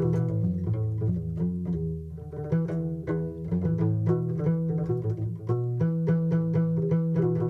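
Background music: a quick, even run of short notes over a sustained low bass line.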